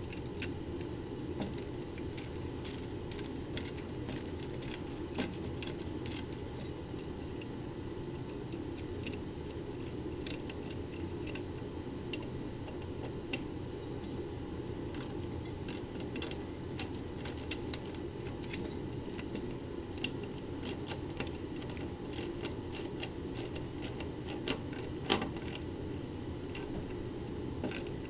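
Small metal clicks and clinks of screws and a nut driver working in a Delco alternator's aluminium end housing as the regulator and diode module are screwed down, scattered irregularly with a couple of sharper clicks near the end. A steady low hum runs underneath.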